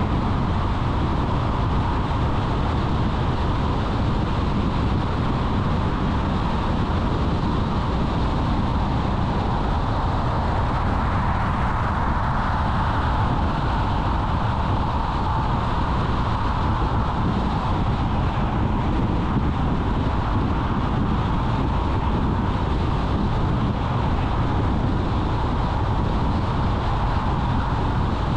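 Car driving at a steady speed on the road: an even rumble of tyres and engine that holds without change.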